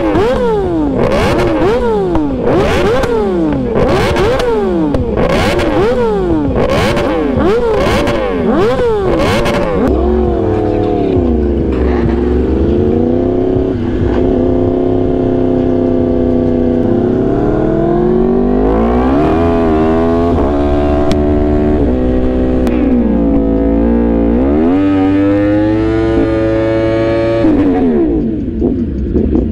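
Superbike engine revving hard through the gears: the pitch climbs and drops sharply with each quick upshift, about eight times in the first ten seconds. Then it eases off and runs at a steadier speed, with two slower climbs and falls of the revs.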